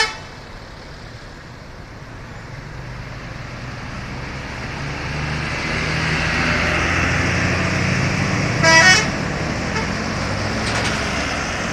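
A bus's engine running, growing louder over the first six seconds and then holding steady. About nine seconds in comes a short blast of its telolet horn, a quick run of musical tones.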